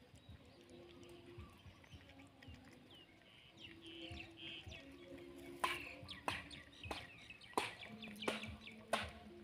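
Puppies chewing and smacking as they eat rice from a plastic plate, with sharp irregular clicks in the second half. Chickens cluck and small birds chirp in the background.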